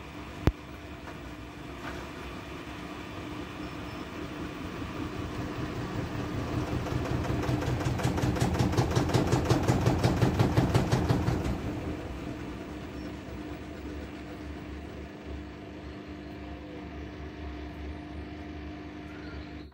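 Siemens WM14Q363NL front-loading washing machine running a wash, its drum turning the sudsy laundry with a steady motor hum and water sloshing. About halfway through, the churning grows louder into a rapid rhythmic pulsing, then settles back after a few seconds. A single sharp click comes near the start.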